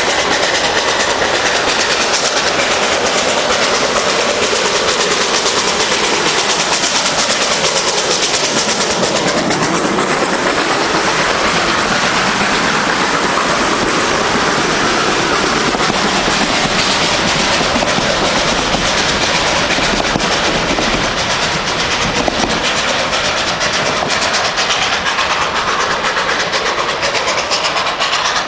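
Steam train passing at close range: the locomotive comes up and goes by, then its carriages clatter over the rail joints as they pass and move away. The sound is loud and continuous throughout.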